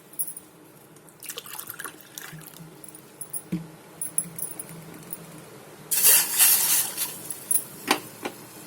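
Water poured from a glass into a cooking vessel: a lighter pour early on, and a louder splashing pour about six seconds in, followed by a few sharp clinks.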